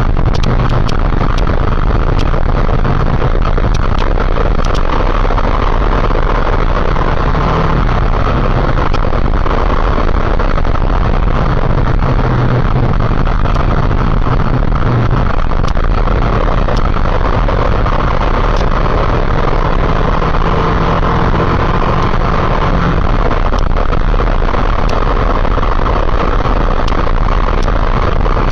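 Motorcycle engine running steadily while riding, mixed with a dense, steady rushing noise.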